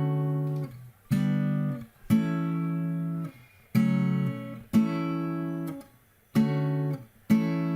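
Background music: an acoustic guitar strumming chords with no singing, a new chord about once a second, each one ringing out and fading before the next.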